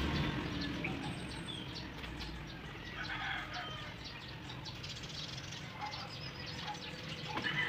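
Backyard chickens clucking and chirping, with scattered short rustles and clicks, and a louder call near the end.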